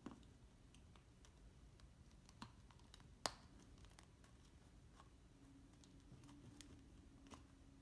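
Beagle puppy gnawing a plastic wiffle ball: faint, scattered clicks and crackles of teeth on the plastic, with one sharper crack about three seconds in.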